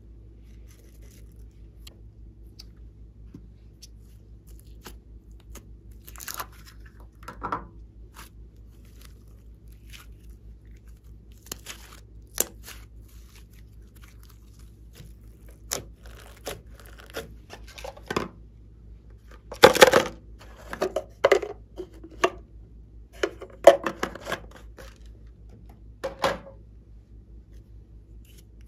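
Hands handling slime and modelling clay in plastic cups: irregular short clicks and rubbing sounds, the loudest cluster about two-thirds of the way in. A faint steady low hum lies underneath.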